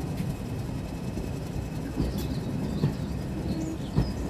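Heritage railway passenger coach running along the line with a steady low rumble, and three sharp knocks about a second apart as the wheels pass over rail joints.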